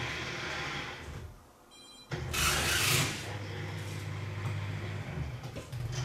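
Electric drive motors of a small wheeled robot cart carrying a seated person, running with a low rough hum as it drives itself into a parking position. The hum drops away briefly about a second and a half in, then returns with a short loud hissing rush before settling back to a steady hum.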